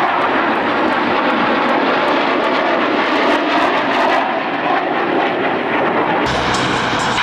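Jet engine noise from a formation of an F-22 Raptor, an F-15 Eagle and a P-51 Mustang flying past: a loud, steady rushing roar. About six seconds in it changes abruptly, taking on more low rumble.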